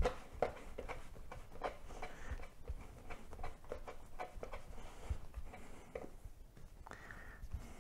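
Hands working a piece of soft bread dough into a ball on a wooden board: irregular soft pats, squeezes and rubbing of dough against the wood.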